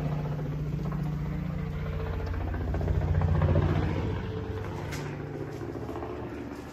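An engine running with a steady low hum that grows louder to a peak about three and a half seconds in, then fades away.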